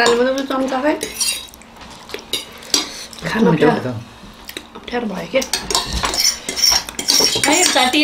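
Metal forks scraping and clinking against plates as three people eat, with many short clicks and scrapes, and a few brief vocal sounds from the eaters in between.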